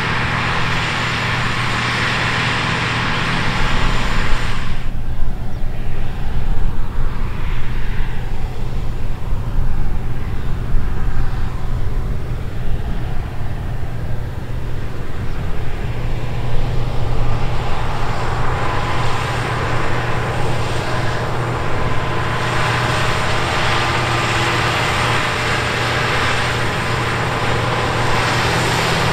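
Case IH Quadtrac 540's big six-cylinder diesel running under heavy load, pulling a deep ripper and disc harrow, with a steady deep engine note. The sound grows louder and more uneven from about five seconds in, then evens out again later on.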